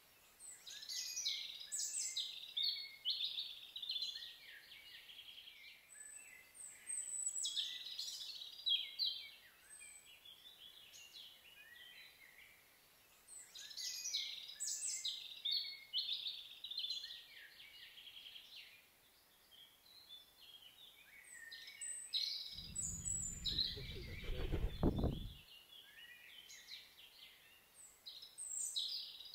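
A songbird singing in short, high, twittering phrases with trills, repeated every six or seven seconds. A low rumble lasting about three seconds comes in near the end.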